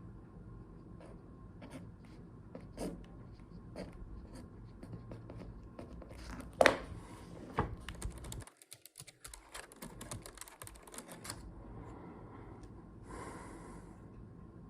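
Fingers typing, keyboard-style: scattered single taps, then two sharper clicks, then a fast run of keystrokes lasting about three seconds. A brief soft rustle comes near the end.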